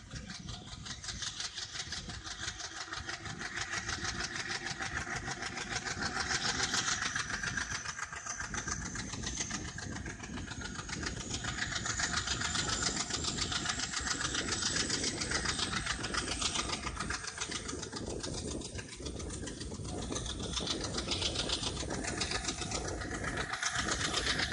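Diesel locomotive hauling a passenger train under load, heard from a coach window: a fast, even chugging exhaust with a high turbocharger whine that slowly rises in pitch, getting gradually louder.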